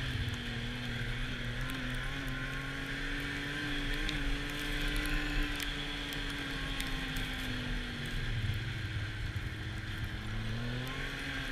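Arctic Cat snowmobile engine running at steady trail speed under a steady rushing noise. The engine note eases off about eight seconds in and climbs again near the end as the throttle comes back on.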